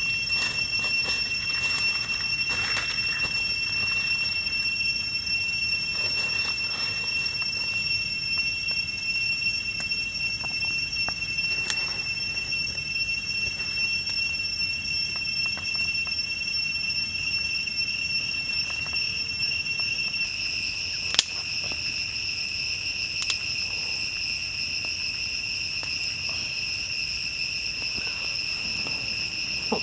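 Steady high-pitched drone of forest insects, several pitches held without a break. Over it come scattered snaps and knocks of sticks being cut and handled for a small wood fire, with one sharp crack about two-thirds of the way through.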